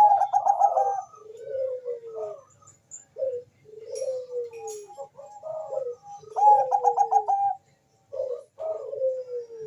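Perkutut bangkok (zebra dove) singing. Each phrase is a quick stutter of clipped notes followed by drawn-out coos that fall in pitch, and a new phrase starts at the beginning and again about six and a half seconds in. Faint high chirps sound in the background.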